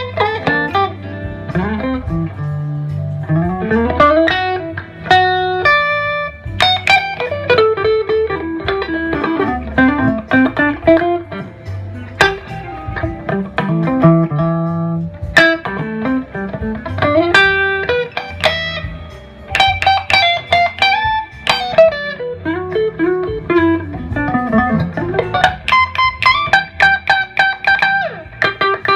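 Electric guitar, a Gibson ES-339 played through a Gibson GA-30RVS tube amp, playing a melodic lead line full of slides and bent notes over steady low notes underneath.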